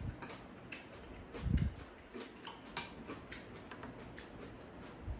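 Chopsticks and spoons clicking and tapping against bowls and a plastic container during a meal: scattered light clicks, with a duller thump about a second and a half in.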